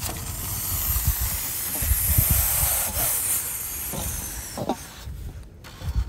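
A steady hiss of rushing water that fades out about five seconds in, with wind rumbling on the microphone.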